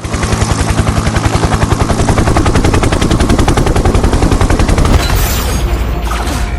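Rapid-fire rattling sound effect: sharp, evenly spaced pulses, more than ten a second, like heavy machine-gun fire. It runs for about five seconds, then fades into a ringing tail.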